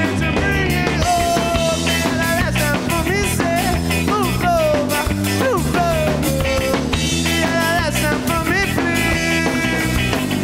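Rock band playing: drums, bass and a lead line that slides and bends in pitch.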